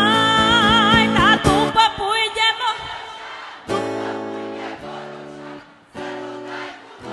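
Live Romanian folk party music from Maramureș: a melody with strong vibrato rides over sustained backing chords and ends about three seconds in. After that the backing chords go on alone in separate held blocks broken by short pauses.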